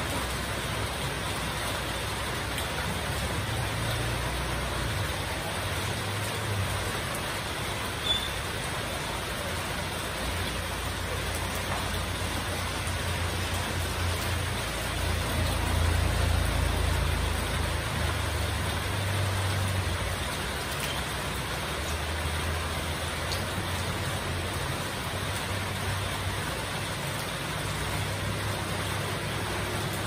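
Heavy rain falling steadily on corrugated metal roofs and the street. A low rumble of passing motorbike engines comes and goes, loudest about halfway through, and there is one short sharp tap about eight seconds in.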